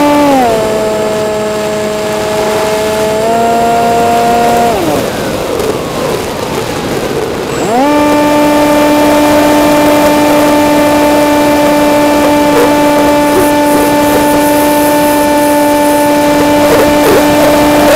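Electric motor and propeller of a model flying wing whining steadily, picked up by an onboard camera with wind rushing over it. The pitch drops as the throttle is eased back right at the start, lifts slightly, then the motor cuts out about five seconds in, leaving only wind rush while it glides. About eight seconds in it spools back up to a higher steady whine and holds there.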